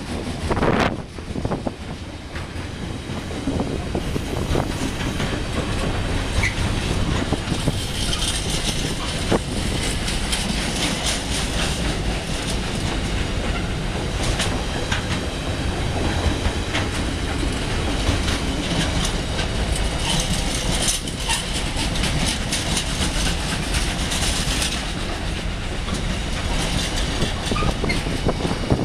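Container wagons of a freight train passing at speed: a steady rumble of wheels on the rails with repeated clicks over the rail joints, and a high-pitched wheel squeal that comes and goes.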